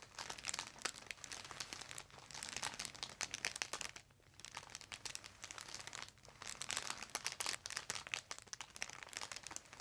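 Light crinkling and rustling from the patient's head and the chiropractor's hands shifting on the treatment table during a gentle neck adjustment: many small irregular crackles, with a brief break about four seconds in.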